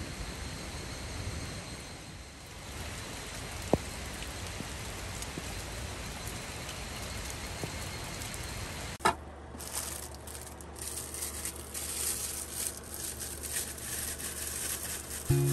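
Heavy rain falling as a steady hiss, with one sharp click a few seconds in. About two-thirds of the way through, this gives way to irregular sizzling and crackling over a low steady hum: hoba miso cooking on a magnolia leaf.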